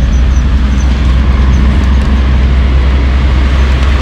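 Steady running noise of a Mitsubishi Pajero Mini on the move, engine and road noise heard from inside the cabin, with a strong low rumble.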